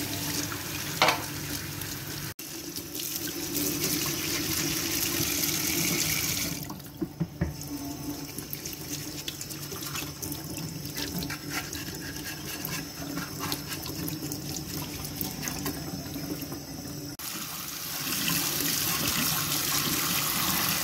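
Hot water running from a kitchen tap and splashing over a metal CPU heat sink held in a stainless steel sink. The splash changes as the part is turned under the stream, quieter through the middle stretch, with a brief sharp knock about a second in.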